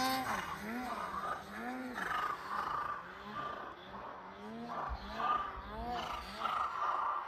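Snowmobile engine revving up and down over and over, its pitch rising and falling about once or twice a second, as a sled is worked through deep snow.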